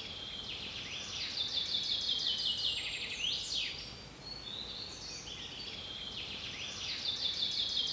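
Birdsong: a fast high trill of rapid chirps with quick rising and falling whistled sweeps, the same phrase coming round again about six seconds later, over a faint hiss.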